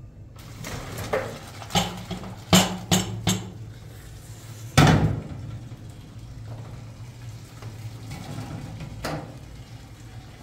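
Irregular clatter of kitchenware being handled: a handful of knocks and clinks in the first few seconds, the loudest about five seconds in and one more near the end, over a steady low hum.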